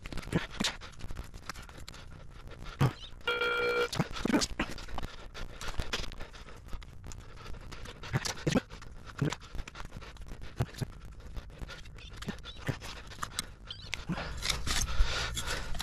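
Spade digging into field soil: a run of short scrapes and knocks, with a brief electronic beep from the metal detector a little over three seconds in.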